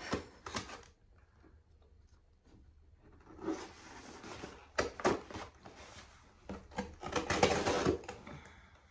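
Rustling and clicking of packaging being handled and unwrapped, in irregular spells, loudest in the second half.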